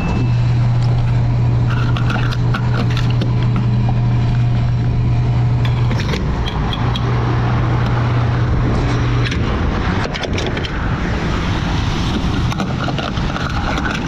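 Gas pump dispensing fuel into a car through the nozzle: a steady low hum that pauses briefly about six seconds in, resumes, then stops a few seconds later. Clicks and scrapes of the nozzle and fuel cap being handled follow.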